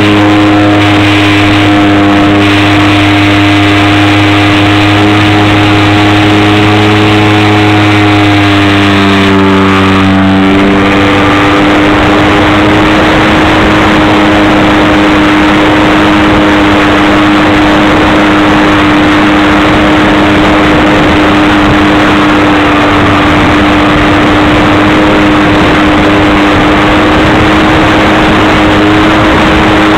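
Hobbyking Pitts model plane's motor running at flying throttle, heard from a camera mounted on the plane: loud and steady, with a brief drop and recovery in pitch about ten seconds in, over a constant hiss.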